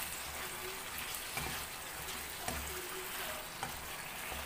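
Boiled potatoes and chickpeas frying in oil and a tomato-tamarind masala in a frying pan, a steady sizzle as a spatula stirs and roasts them, with a few faint clicks of the spatula against the pan.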